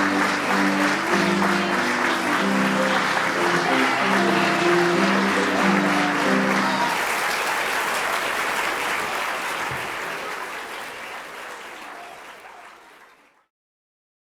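Audience applauding with instrumental music over it. The music stops about halfway through, and the applause fades out to silence near the end.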